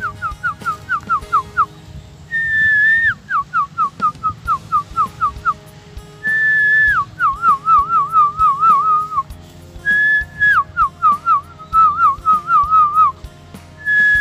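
A person whistling to lure a garden lizard. The whistling comes in repeated phrases about every four seconds, each a long high note that drops into a quick run of short chirping or warbling notes.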